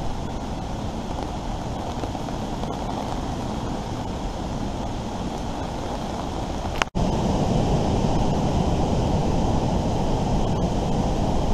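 Steady wind and rain noise, with wind buffeting the microphone. The sound drops out for an instant about seven seconds in and comes back louder.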